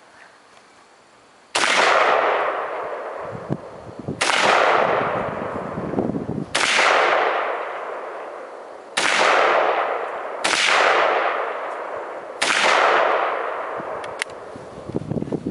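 Six single shots from an AK-47 rifle firing 7.62×39 mm rounds, spaced about two seconds apart, each followed by a long fading echo.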